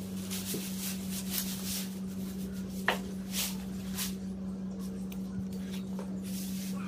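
Synthetic tent fabric of a dome shelter rustling in repeated short swishes as it is handled and spread out, with a single sharp tap about three seconds in. A steady low hum sits underneath.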